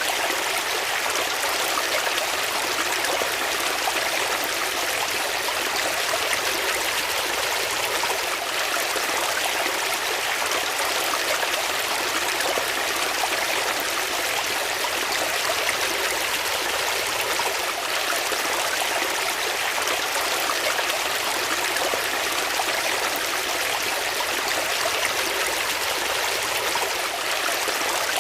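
Water flowing steadily in a stream, a constant rushing and trickling without breaks.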